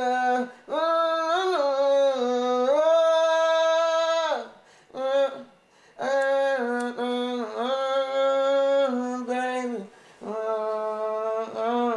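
A man singing a wordless melody in long held notes that step from pitch to pitch, in a few phrases with short breaks between them, with no backing track heard.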